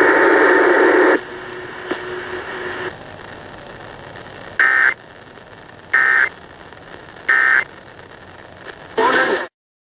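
Emergency Alert System end-of-message data tones on a radio broadcast: three short, identical digital bursts about 1.3 seconds apart, closing a required monthly test. A second of loud static comes before them, and near the end a brief burst of noise is followed by a short dropout.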